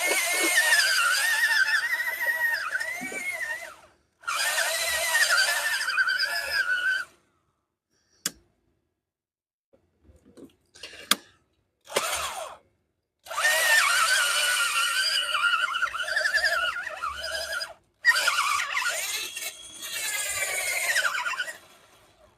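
Power drill with a step drill bit widening a hole in a steel plate, running in several bursts of a few seconds with short stops between. The bit gives a high, wavering squeal as it cuts, with water applied as coolant.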